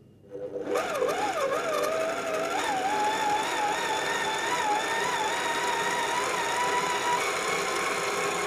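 Electric stand mixer whisking double cream and caster sugar. The motor whine starts about half a second in, wavers and climbs in pitch over the first two seconds, then runs steadily.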